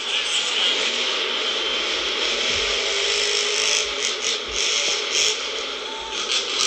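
Monster truck engine running hard in an arena, a steady dense noise, with a few low thumps about two and a half and four and a half seconds in.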